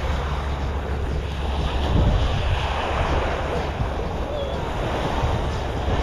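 Small surf washing onto a sandy shore, with wind buffeting the microphone as a steady low rumble.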